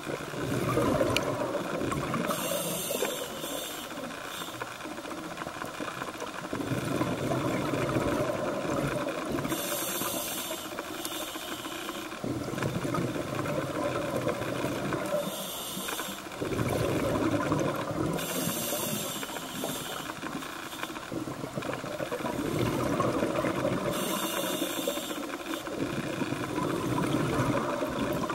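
Scuba diver breathing through a regulator underwater: five hissing inhalations, a few seconds apart, and between them the crackling, bubbling noise of exhaled air.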